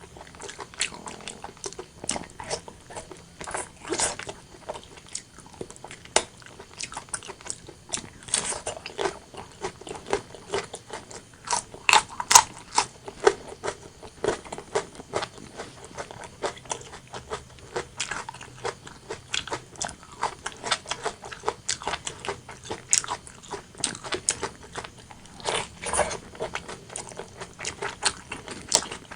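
Close-miked eating of braised pork and white rice: steady wet chewing and biting with irregular mouth clicks and smacks, a few louder bites about twelve seconds in and again near the end.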